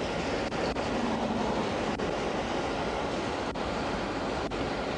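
Steady rushing noise of wind and highway traffic picked up by a roadside police microphone.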